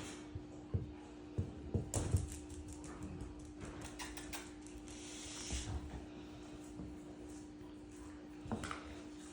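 Light scattered clicks, taps and rustles of a Cavapoo puppy moving and being handled, thickest about two seconds in and again near the end, over a steady low hum.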